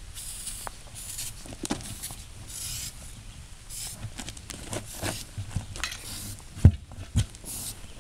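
Short bursts of an aerosol can of starter fluid (ether) hissing as it is sprayed into the gap between a tire's bead and its steel rim, about seven separate squirts. Two low thumps come near the end.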